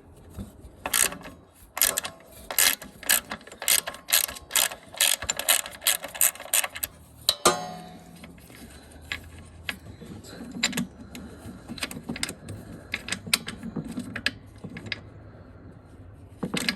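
Hand ratchet wrench clicking, a quick run of strokes about three a second, then slower, scattered clicks in the second half.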